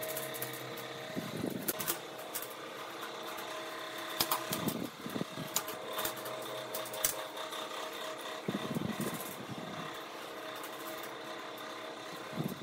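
Flat steel bars and bolts clinking and scraping on a metal workbench as a scissor linkage is bolted together: a few sharp metallic clicks and short sliding scrapes, over a steady background hum.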